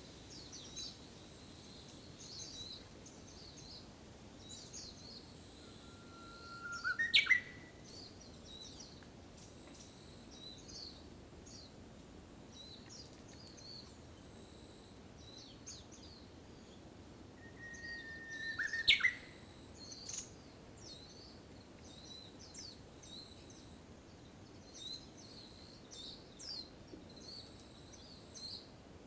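Japanese bush warbler (uguisu) singing its hō-hokekyo song twice, about eleven seconds apart, each a long held whistle ending in a quick rising flourish; it is the practised song of early summer. Many faint, short, high chirps go on throughout.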